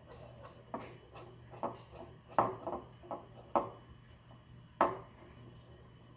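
Plastic fidget spinner handled and knocked against a wooden tabletop: a string of irregular light clicks and taps, the loudest about two and a half, three and a half and five seconds in.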